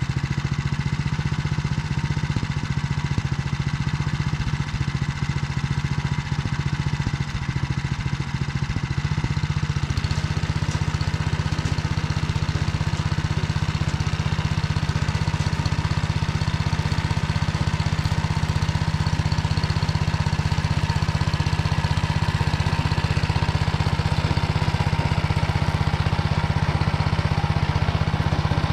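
Walk-behind tractor engine running steadily as it drives a rotary tiller through hard, dry soil. The sound grows fuller about ten seconds in.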